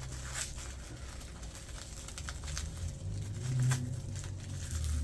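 Light handling noises: scattered small clicks and soft rustling as a packaged item is picked up and unwrapped.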